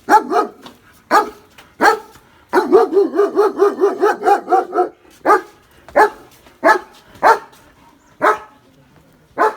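A dog barking over and over: single barks spaced about half a second to a second apart, with a quick run of barks between about two and a half and five seconds in.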